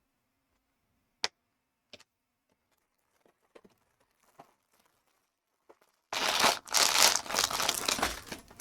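Packaging being opened: a few light clicks, then about six seconds in a loud stretch of crinkling and tearing as the wrapping is pulled apart.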